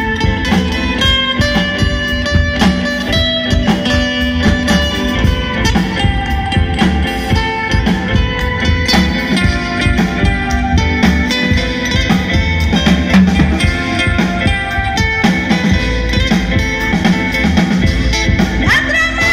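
Live band playing an instrumental break in a Bengali folk song: electric guitar picking out the melody over bass guitar and a drum kit. A woman's singing comes back in near the end.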